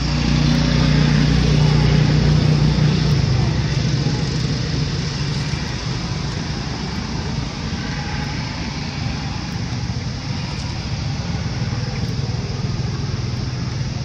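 A motor vehicle's engine running with a steady low drone, loudest in the first few seconds, then easing to a lower, even level.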